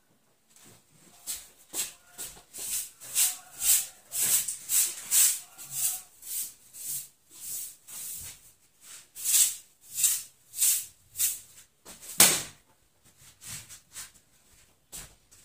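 Hand broom swishing across a floor in quick repeated strokes, about two a second, with one louder knock about three-quarters of the way through.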